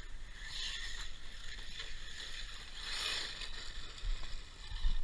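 An ARRMA Typhon 6S BLX-based RC truck running on loose gravel, its hissing and crunching rising in two surges, about half a second in and around three seconds, over wind rumbling on the microphone.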